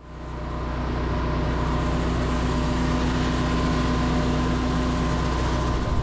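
Pressure washer running with a rotary flat surface cleaner spraying water across stone paving: a steady hum under an even hiss, fading in over the first second and cutting off at the end.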